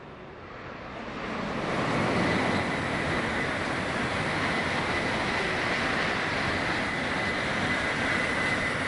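Tokaido Shinkansen bullet train passing at speed: a rushing noise of wheels on rail and air that builds over about two seconds, then holds steady, with a thin high tone over it in the second half.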